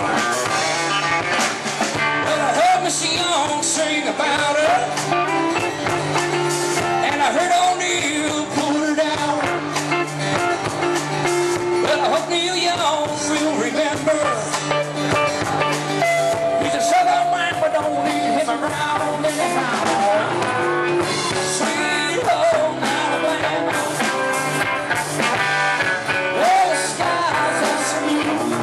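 Live rock band playing electric guitars and a drum kit, with a man singing lead into a microphone.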